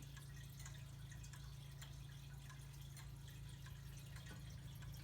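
Gustav Becker pendulum wall clock ticking faintly, small clicks from its escapement, over a low steady hum.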